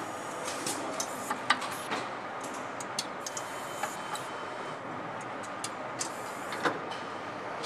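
Engine assembly line ambience: steady factory background noise with irregular sharp clicks and light taps as cylinder-head parts and a hand tool are handled at the workstation.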